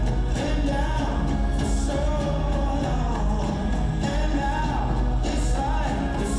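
A song with a lead voice singing over a full band, with a steady beat and occasional cymbal crashes.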